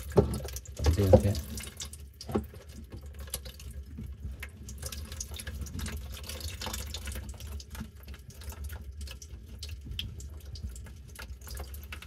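Water trickling out of the loosened slip-nut joint of a white plastic sink drain P-trap. In the first couple of seconds the plastic drain pipe knocks a few times as it is handled.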